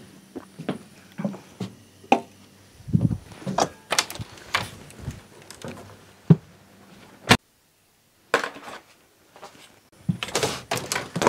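A camper trailer's screen door being opened and shut, with a string of separate knocks, clacks and thuds from the door and steps on the wooden deck.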